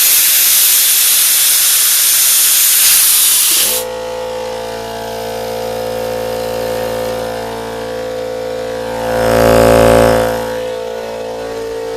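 Compressed air hissing loudly out of a Central Pneumatic 21-gallon 2.5 hp air compressor, stopping abruptly after about four seconds; the compressor's oil-lubricated pump and motor then run with a steady, really loud drone, swelling louder for a moment about ten seconds in. The pump is kicking on to refill the tank after the air release.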